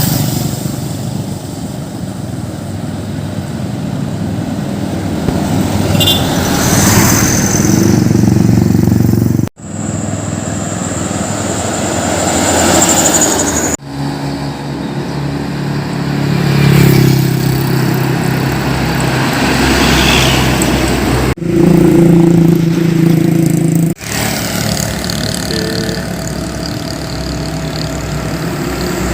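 Diesel engines of heavy trucks running and passing by, in several short clips that cut off abruptly one after another.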